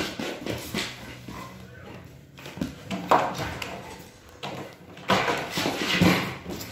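Bulldog × rottweiler-labrador mix dog tearing around a room, its claws scrabbling and paws thudding on a hard floor in several irregular bursts.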